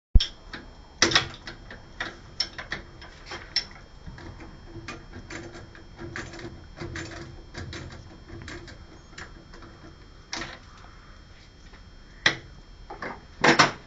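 Irregular clicks and knocks of metal parts being handled as a manual handwheel is fitted onto a stepper motor shaft, over a faint steady hum; the sharpest knocks come about a second in and near the end.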